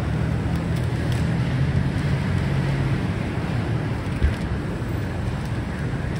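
Steady low rumble of street traffic, with one short knock about four seconds in.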